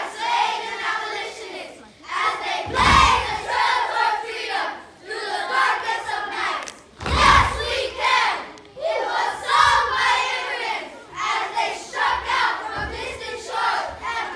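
A chorus of young children reciting together in unison, in loud chanted phrases separated by short pauses.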